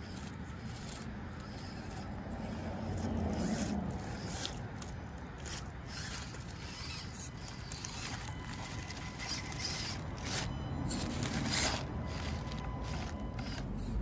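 Axial SCX24 1/24-scale micro RC crawler working over dry leaves and rocks: repeated scraping and rustling of its tires and chassis on the leaf litter and stone, with a faint steady whine joining about eight seconds in.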